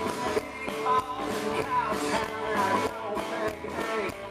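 A live country-rock band playing, with guitar prominent over a steady beat.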